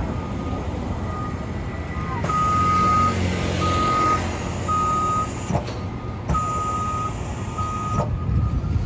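A heavy vehicle's electronic warning beeper sounding a regular series of single-pitch beeps, a little over one a second, which grow much louder about two seconds in. A large diesel engine runs low underneath.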